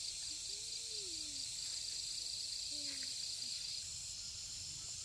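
Insects, crickets, chirring steadily in a fast pulsing trill, with the highest trill fading out about four seconds in. A few faint sliding calls sound under it.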